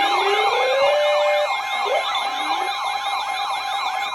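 Several electronic sirens yelping at once, their overlapping tones sweeping up and down about three to four times a second over a steady tone.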